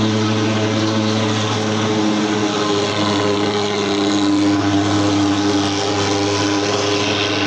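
Pulse-jet engine of a thermal fogging machine running with one steady, loud drone.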